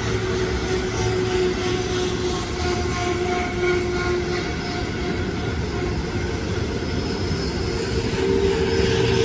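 A freight train of covered hopper wagons rolling past with a steady rumble of wheels on rail. Faint thin whines come and go over it.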